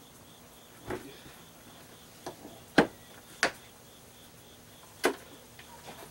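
Plastic engine cowling of an Evinrude 225 outboard clacking and knocking as it is pressed down and seated on the engine, with about half a dozen separate knocks, the loudest about three seconds in.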